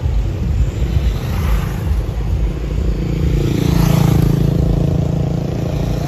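Busy street traffic of motorbikes and cars running steadily. A motorbike passes close about four seconds in, its engine note swelling and then fading.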